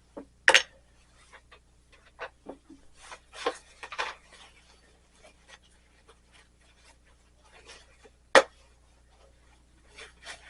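Tools and small items being handled and set down on a workbench: scattered light clicks and short rubbing sounds, with a sharp knock about half a second in and a louder one about eight seconds in.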